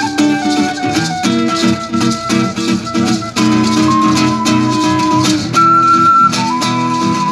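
Small acoustic group playing an instrumental tune: a recorder carries the melody in held notes over a strummed acoustic guitar and a steady shaking of maracas.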